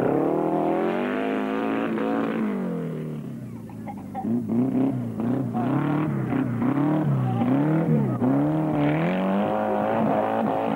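Small Fiat 500 race car's engine revving hard. Its pitch climbs and falls, eases off about three seconds in, then rises and drops in quick repeated surges as the throttle is worked on and off.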